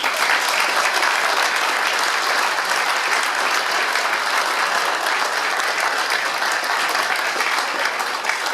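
Audience applauding steadily, starting all at once.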